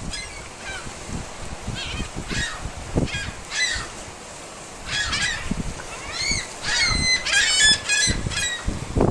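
Seagulls calling: short, arching squawks, sparse at first and coming thick and fast from about halfway, with a quick run of repeated notes near the end.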